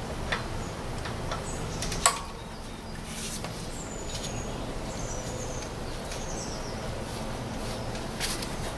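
Sharp metallic clicks as a 15 mm socket and bar work the auxiliary belt tensioner: one loud click about two seconds in, lighter ones at the start and near the end. Birds chirp a few times in between, over a steady low hum.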